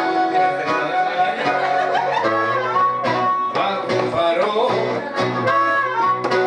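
Live blues music played by a band, with sustained and bending melodic notes over a steady accompaniment.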